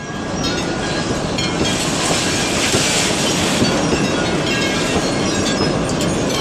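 Tornado winds hitting a mobile home: a loud, continuous rush of wind-driven noise with no break, like a passing freight train.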